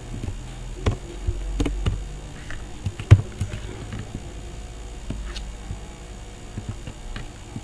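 Scattered computer mouse clicks and keyboard keystrokes, sharp and irregular, the loudest about three seconds in, over a steady low electrical hum.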